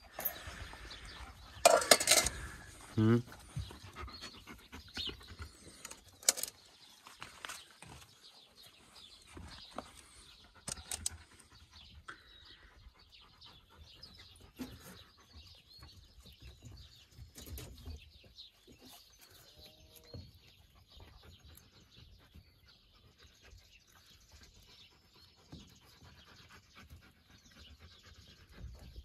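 Wolf panting among a litter of pups, with faint high pup squeaks and soft scuffling on sand; a brief louder vocal sound comes about two seconds in.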